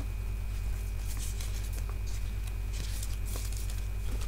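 Paper sticker sheets and plastic packets of scrapbooking supplies rustling and crinkling in short bursts as they are handled, over a steady low electrical hum.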